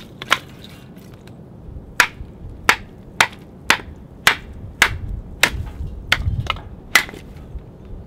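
Dry wood being struck hard and broken up for firewood: a run of sharp wooden knocks about two a second, after a single knock near the start.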